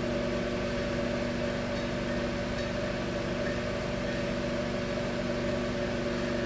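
Microwave oven running, a steady hum that does not change.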